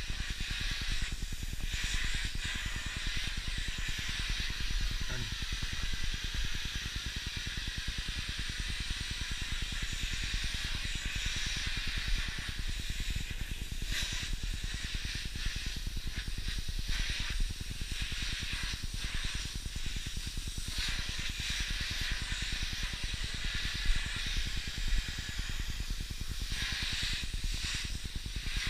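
Vacuum cleaner running with a steady hissing suction, its sound shifting briefly a few times as the nozzle is drawn over a dog's coat and the floor.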